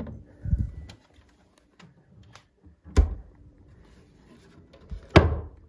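Handling knocks of a mini-fridge and wooden cabinet: a soft thump about half a second in, a sharp knock about three seconds in as the fridge door is shut, and a louder knock with a short ring near the end.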